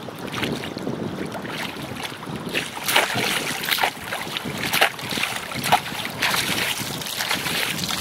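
Shallow river water splashing and sloshing in irregular bursts as hands pull a metal chain through it, with wind buffeting the microphone.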